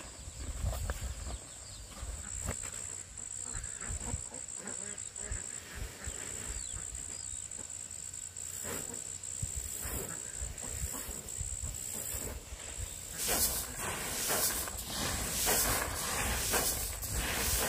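A steady high-pitched insect drone, with scattered clicks and rustling throughout that grow louder and denser over the last few seconds.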